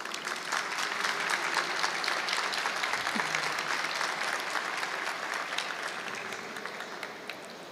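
Audience applauding at the end of a talk: a crowd's clapping that swells quickly, holds, then tapers off near the end.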